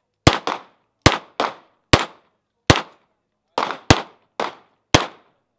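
Ten pistol shots fired at an irregular pace, some in quick pairs, each a sharp crack with a short ringing tail.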